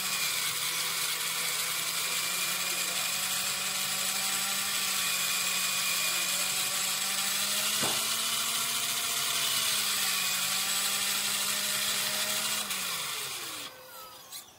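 Electric RC car's motor and gearing whining steadily at speed, heard from a camera mounted on the car. A sharp knock about eight seconds in. Near the end the whine drops in pitch and dies away as the car slows.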